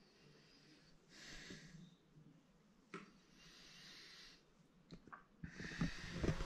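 A person breathing close to the microphone: two soft breaths about a second and three seconds in, a click in between, then louder rustling near the end.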